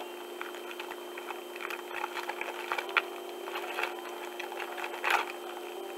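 Clear plastic bag crinkling and crackling in irregular bits as a small accessory is worked out of it, with a louder crackle just after five seconds in.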